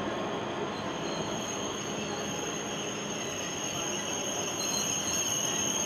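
Train station platform ambience: a steady rush of train and hall noise with a high, steady squeal of train wheels or brakes held over it.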